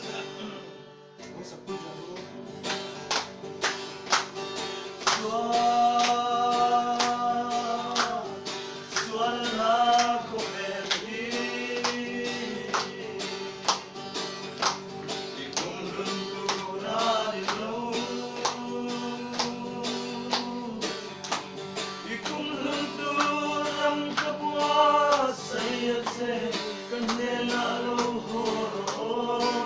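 Acoustic guitar strummed to a steady beat while a man sings a Mizo song, with hands clapping along in time.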